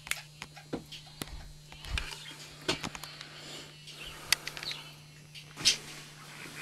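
Manual treadmill being walked on: irregular knocks and clicks of footsteps and the moving belt, with two louder knocks late on, over a steady low hum.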